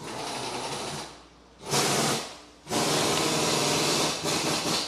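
Pneumatic tool run in four bursts, each from about half a second to a second and a half long, with short gaps between them.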